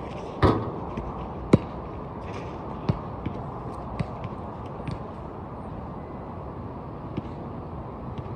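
Basketball knocking off the hoop and bouncing on the outdoor court: a few sharp knocks roughly a second apart, the loudest about a second and a half in, over a steady low background noise.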